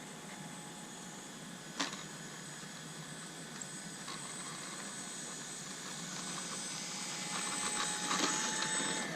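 Radio-controlled Cessna 182 model's electric motor running with a steady whine. There is a single sharp click about two seconds in, and the motor grows louder over the last two seconds.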